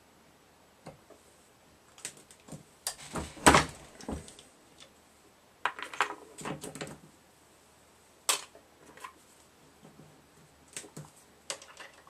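Sharp clicks and short clattering knocks of cartridges and reloading-press parts being handled. The loudest clatter comes about three to four seconds in, another cluster around six seconds, and a single sharp click a little after eight seconds.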